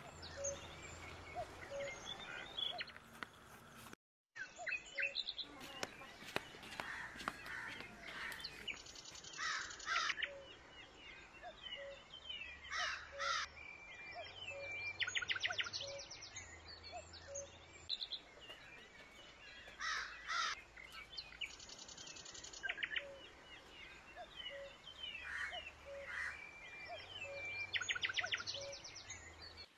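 Several birds calling and chirping, with short repeated trills and harsh calls coming and going, and a brief silent gap about four seconds in.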